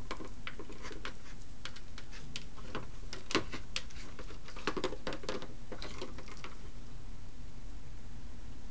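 Irregular plastic clicks and taps from a plastic toy track with a robotic hamster toy inside as cats paw at it. The clicks stop about six and a half seconds in, leaving a steady low hum.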